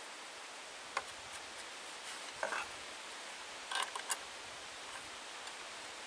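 Light metallic clicks and taps of a hand wrench on the propeller nut of a model aircraft engine as the nut is tightened: one click about a second in, another near two and a half seconds, and a short cluster around four seconds, over faint hiss.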